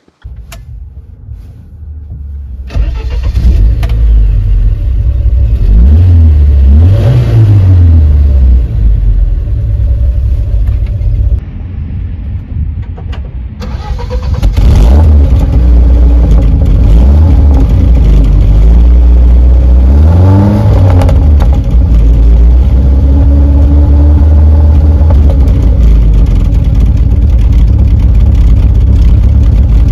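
Bedford CF2 van's 2.3-litre four-cylinder engine starting up: it cranks and catches about two and a half seconds in, is revved a couple of times, then idles. It is heard first from inside the cab and then close to the exhaust tailpipe, with a few more blips of the throttle before it settles to a steady idle.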